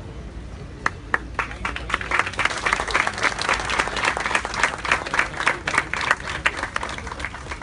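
A small crowd applauding. The hand claps begin scattered a little under a second in, build to steady applause, then thin out near the end.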